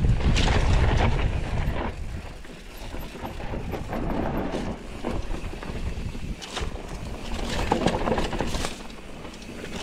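Mountain bike rattling and clattering over a rough dirt trail while being ridden, with a heavy low rumble for the first two seconds.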